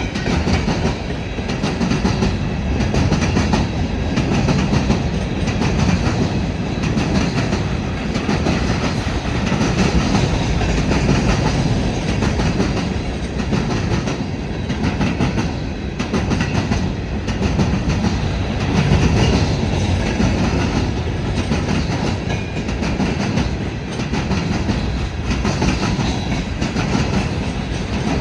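Empty freight cars of a unit rock train rolling past, their steel wheels clattering steadily over the rail joints in a continuous rumble that swells and eases every second or two.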